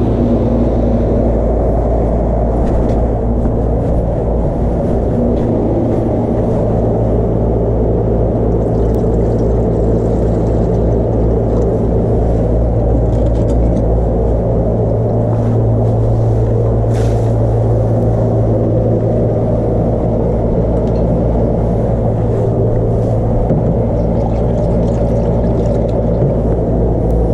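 Steady low rumble with a constant hum underneath.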